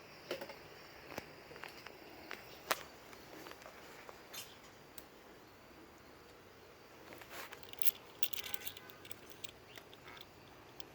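Scattered light clicks, taps and rustling of hand handling, a busier cluster of clicks about seven to nine seconds in.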